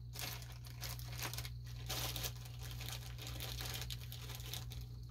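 Small clear plastic bags of screws and hardware crinkling as they are handled, a run of faint, irregular crackles.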